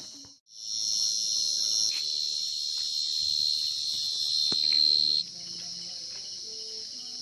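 Field crickets trilling in a dense chorus, a steady high-pitched ringing. It drops out for a moment just after the start, comes back loud, and falls to a quieter level about five seconds in, as if the nearest singer stopped.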